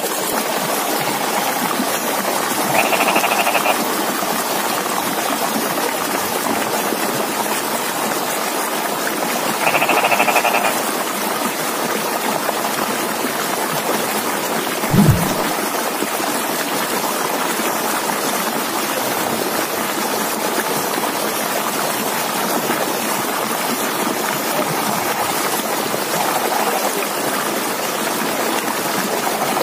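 Frogs calling in a flooded rice paddy over a steady hiss. Louder bursts of croaking come about three and ten seconds in and again near the end, and a brief low thump falls about halfway through.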